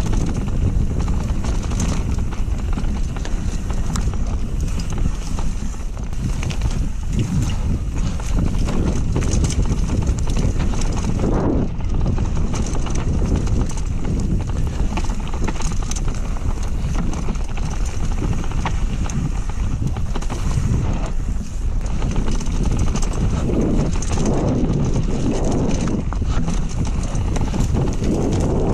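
Mountain bike riding down a dirt trail: a steady rush of wind on the microphone, with a constant clatter of knocks and rattles from the bike.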